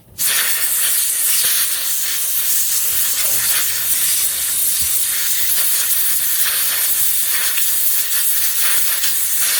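A pressurised jet hissing loud and steady into a 6003 ball bearing, flushing out the old grease and rust that make it turn rough. It starts sharply just after the beginning.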